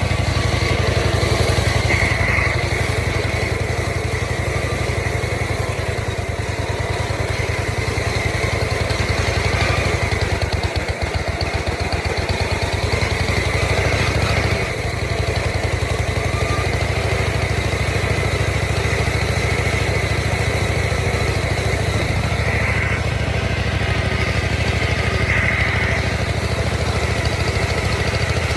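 Riding lawn mower engine running steadily under way through its short exhaust, with a brief dip in level about eleven seconds in and again near the middle.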